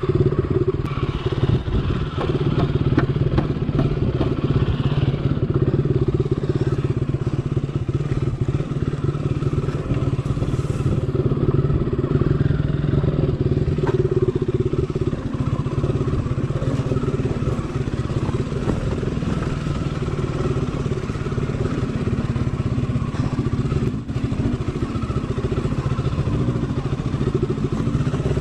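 Motorcycle engine running at a low, steady pitch, with clattering and small knocks from the bike riding over a rough offroad track.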